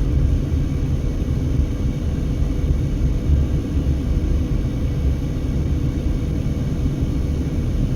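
Steady low rumble inside a moving car's cabin: road and engine noise mixed with strong gusting wind buffeting the car.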